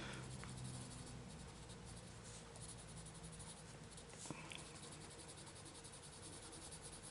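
Faint scratching of a coloured pencil shading on paper in quick, repeated strokes, with a small tap about four seconds in.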